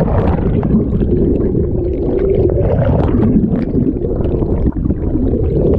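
Muffled underwater rumble and bubbling of churned river water, picked up by a camera held below the surface as swimmers thrash through the shallows beside it. A steady, dense low rumble with small clicks and pops of bubbles throughout.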